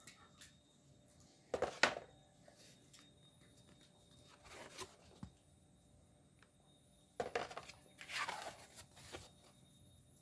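Faint rustling and scraping of thin, paper-backed art panels being handled and shifted against each other, in short bursts about two seconds in, around five seconds, and again from about seven to nine seconds.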